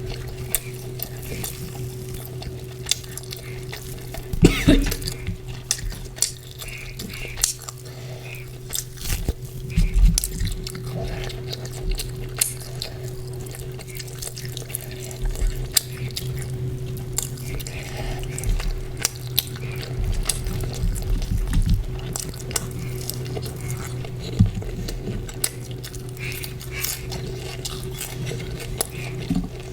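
Close-miked eating of chicken curry with porota: many small wet clicks and chewing noises, with clinks and knocks against a plate, over a steady low hum.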